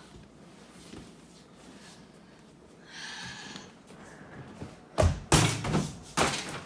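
Small basketball hitting a Pop-A-Shot style mini hoop's backboard and rim: three loud bangs in quick succession about five seconds in, after a quiet stretch.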